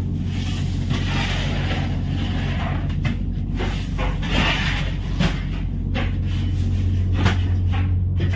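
Steady low hum of a running engine, with a few short knocks and scrapes over it.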